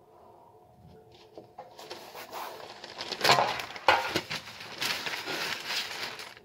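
Greaseproof baking paper crinkling as it is handled and laid on a baking tray, with two louder sharp crackles a little past the middle.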